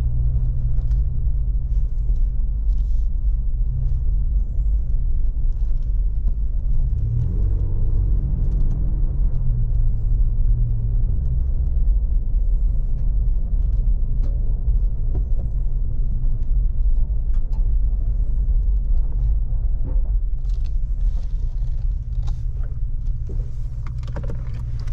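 Ford Raptor pickup heard from inside the cabin while driving: a steady low rumble of engine and road noise, with faint scattered ticks.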